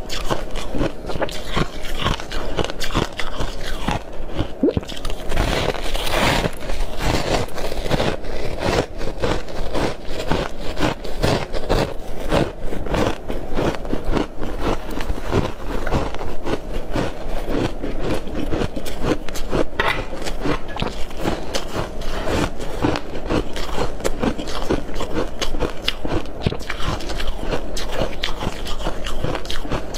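Soft freezer frost being bitten and chewed close to the microphone: a dense, unbroken run of crisp crunching and crackling, with a louder bite about six seconds in.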